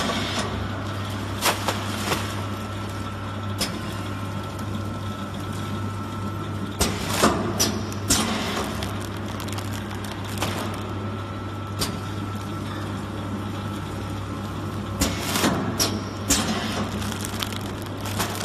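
Snack packaging machine running with a steady low hum and a faint high whine, overlaid by clusters of sharp clicks and crinkles from the plastic snack packets: about two seconds in, around seven to eight seconds in, and again around fifteen to seventeen seconds in.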